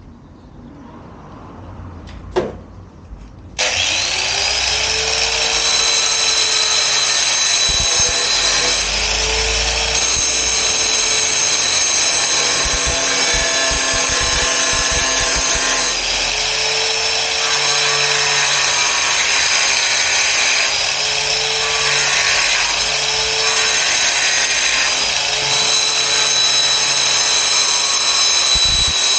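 Angle grinder starting suddenly about three and a half seconds in, its whine rising as it spins up, then running loud and steady on the plastic mudguard piece, the pitch shifting a little now and then as it bears on the work.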